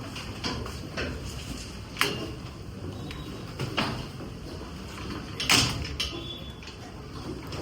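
Irregular knocks and clatters over a steady low background, the sharpest about two seconds in and the loudest about five and a half seconds in.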